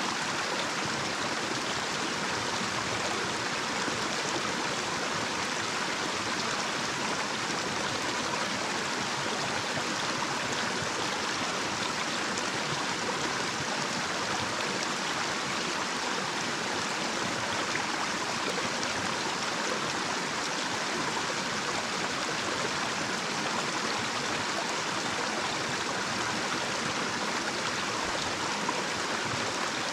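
Small, shallow natural stream running over a little cascade: a steady, unbroken rush of flowing water with no pauses.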